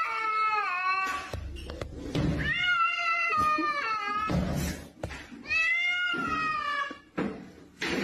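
Domestic cat meowing loudly in long, drawn-out calls about every three seconds, each call bending down in pitch at its end, with short bursts of noise in the gaps between calls.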